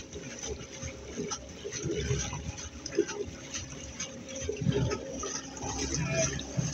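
Water sloshing and gurgling against the hull of a small boat under way, with irregular splashes.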